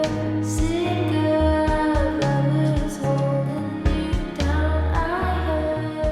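Background pop music with a female singer, a steady bass line and a regular beat.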